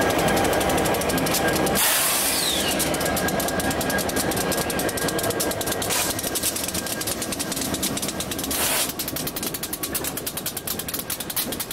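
Union Pacific diesel freight locomotives passing close under power. The train horn holds a chord for about the first two seconds, then cuts off. After that comes a rapid clicking of wheels over rail joints as the trailing units and freight cars roll by, with short bursts of hiss about two, six and eight and a half seconds in.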